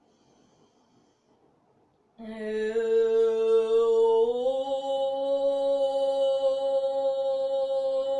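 A woman chanting one long, steady Om, beginning about two seconds in after a quiet breath in. Its pitch steps up slightly about two seconds after it starts and is then held.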